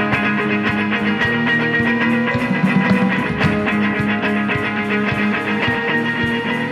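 Live band music with electric guitar and keyboard over a steady beat.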